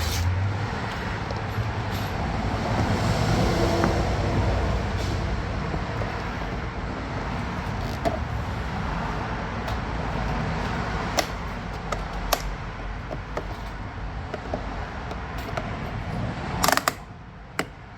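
Sharp clicks and snaps of a plastic door-handle trim cover being pried loose from a 2014 Mazda Miata door panel, loudest in a cluster near the end, over a steady background rumble.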